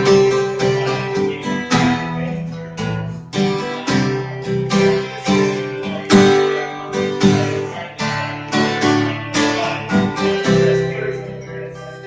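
Acoustic guitar strummed in a steady rhythm of chords, a stroke every third to half second, growing quieter and sparser near the end.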